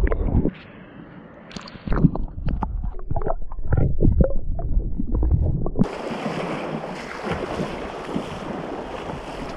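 Muffled, irregular sloshing and thumps of creek water heard with the microphone under the surface; about six seconds in the sound switches suddenly to the steady rush of the flowing stream heard above water.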